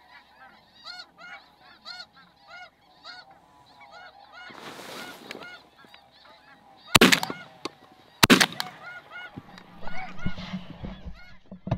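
Snow geese calling in a steady run of high honks, with two shotgun shots about seven seconds in, a little over a second apart. A short burst of noise comes just before the shots.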